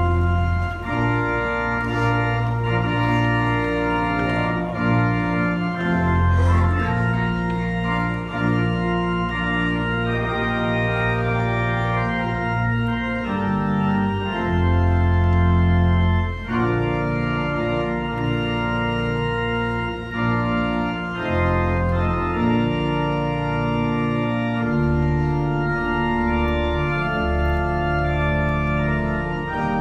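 Church organ playing a slow processional in sustained chords over deep held bass notes, the music for the bride's walk down the aisle.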